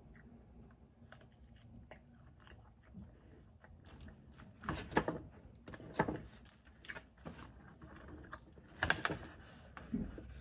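A person biting and chewing food: scattered small clicks, with a few louder bites in the second half.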